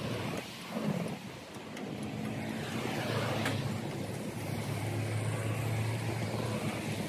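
Road traffic passing close by: a motorcycle and then a car drive past, their engine hum swelling and strongest a little past the middle.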